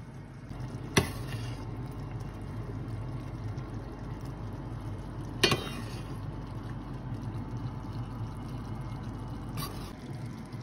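Mapo tofu being ladled onto ramen in soup, with wet pouring and splashing and a metal ladle knocking sharply against the pan twice, plus a fainter knock near the end, over a steady low hum.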